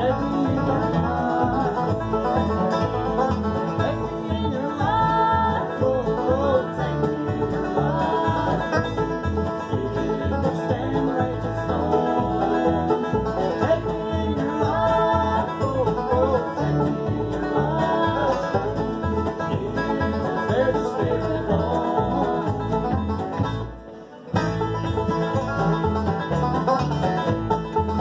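Bluegrass jam of acoustic guitar, banjo, upright bass and fiddle, with the bass keeping a steady beat. About 24 seconds in the music dips out briefly and cuts back in.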